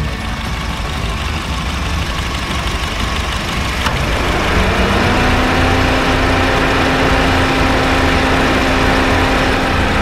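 Honda Fit GD3's 1.5-litre four-cylinder engine idling steadily with the air conditioning running, the compressor no longer making its earlier abnormal noise. About four seconds in there is a click, and a steady hum joins and holds.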